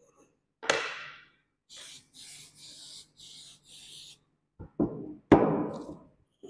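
Aerosol cleaner sprayed in five short hissing bursts onto a magnetic-particle test sample, washing off the magnetic particles in post-cleaning. There is a sharp knock before the spraying and a few loud knocks near the end as the can is set down on the table.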